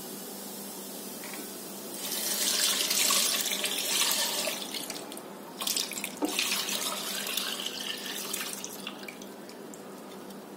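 Milk pouring in a stream from a container into a pan of fried pea paste, starting about two seconds in, splashing loudest early and tapering off, with a couple of clicks about halfway through.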